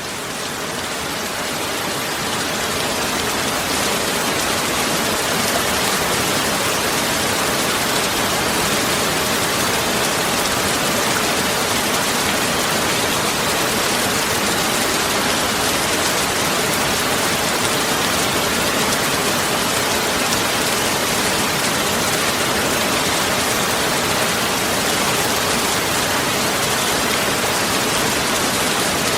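Steady, even hiss like heavy rain, fading in over the first few seconds and then holding level.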